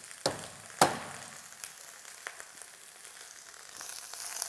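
Two sharp snaps as cinnamon sticks are broken in half by hand, the second louder, over the steady sizzle of a leg of lamb and vegetables frying in a hot pot. Near the end the sizzle grows louder as the broken pieces go into the pot.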